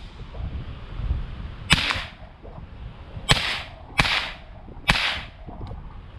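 AR-15 rifle firing 5.56 rounds: four sharp shots, the first about 1.7 seconds in and the last three about a second apart, each with a short echo.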